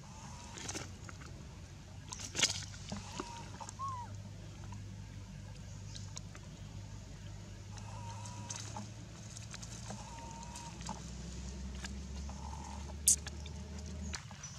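Infant long-tailed macaque giving several short, thin calls, with rustling in dry leaves and a couple of sharp clicks.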